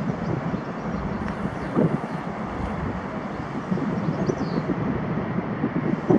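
Airbus A330 twin-jet airliner at takeoff power, its engines giving a steady rumble with a gusty, crackling low end as it lifts off the runway.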